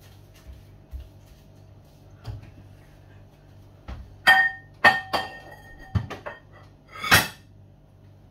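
Ceramic bowls and plates clinking against each other as bowls are taken from a stack on a kitchen shelf: about five sharp clinks with a brief ring, all in the second half.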